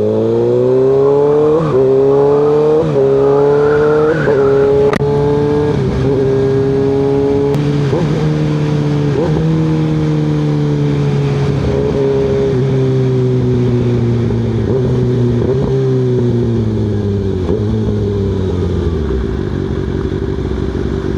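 Kawasaki ZX6R 636 inline-four running through an M4 exhaust with the baffle removed, nearly a straight pipe. The revs climb through a couple of quick gear changes early on. The note then slowly falls with a string of short blips and settles to a steadier, lower note near the end.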